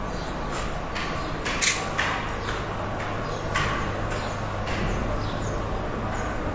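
Footsteps on concrete paving stones, about two a second, over a low steady rumble.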